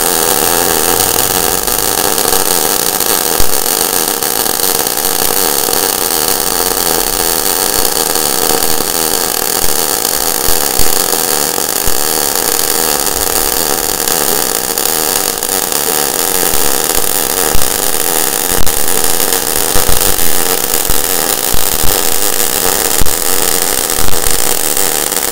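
Wire-feed (MIG) welding arc from a Weldinger MEW 201 SYN ECO inverter welder laying a bead on a thicker steel piece: a steady crackle with sharper pops that come more often in the second half. The workpiece is not making good contact.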